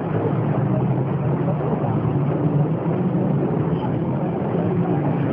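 Volkswagen 17.230 EOD bus's diesel engine running as a steady, low drone in a poor-quality recording.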